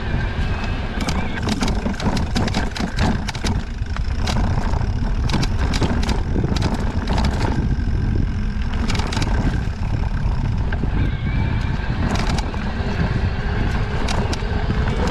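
Mountain bike ridden over rough trail: a steady rumble of wind and tyres, with many sharp clicks and cracks in clusters. The cracks are the Fox 38 suspension fork creaking and cracking as it compresses over roots and rocks, a fault that came back after a warranty repair.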